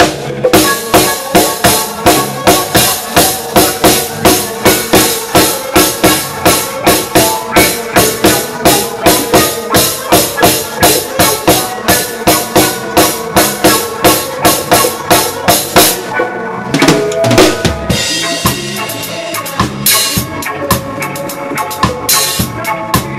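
Drum kit played live in a reggae band, heard from the drummer's seat: steady hits about two and a half a second over the band's pitched instruments. About two-thirds of the way through the pattern breaks, a cymbal wash rings out, and a lighter groove follows.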